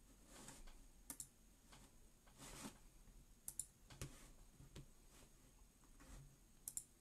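Faint, scattered clicks of computer keyboard keys being pressed, a few at a time with pauses between, some in quick pairs.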